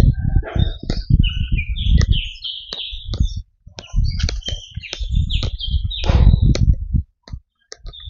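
Small forest birds chirping and whistling in quick, varied calls, over the low thumps and scuffs of footsteps walking on a dirt path.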